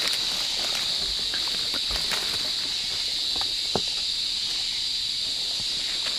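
Dry leaf litter rustling and crackling as a sun bear roots through it for insects, with one sharper snap a little past the middle. A steady high-pitched hiss of rainforest insects runs underneath.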